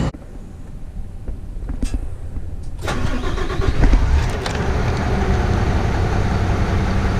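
Skip truck's diesel engine being started with the key: a short low crank, then it catches about three seconds in, surges briefly and settles into a steady idle.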